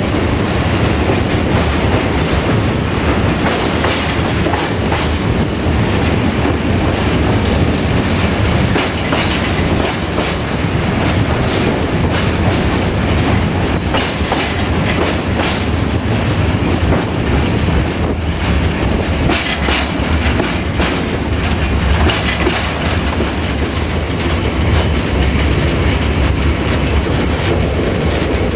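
Ballast train's wagons rolling along, wheels clattering over rail joints amid a constant heavy rumble.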